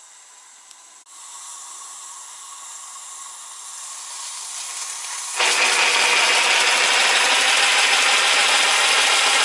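Steam hissing from a scratch-built 0-8-4 live-steam locomotive as steam is let through it. A faint hiss builds slowly, then about five seconds in it jumps suddenly to a loud, steady rush of steam.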